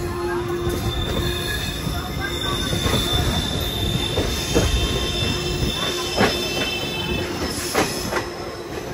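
Passenger train running along the track, heard from on board: a steady rumble of the wheels with a thin squeal of wheels on rail and a few scattered knocks.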